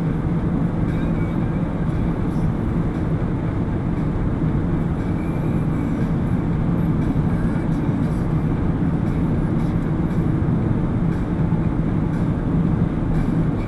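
Steady road noise inside a car's cabin at highway speed: tyre rumble and engine drone, with a constant low hum and no changes.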